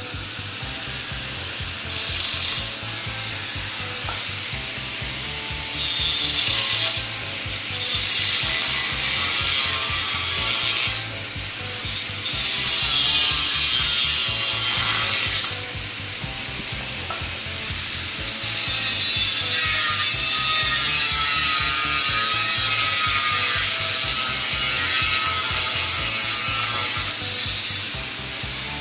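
Power tool grinding steel, most likely an angle grinder working on the barrier's metal, a continuous harsh grinding hiss that swells and eases as the disc is pressed in and lifted, with background music underneath.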